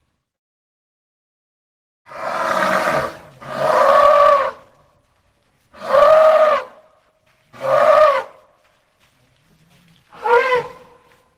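Elephant trumpeting: five separate calls about a second long each, every one rising and then falling slightly in pitch. The first two come close together, and the last is the shortest.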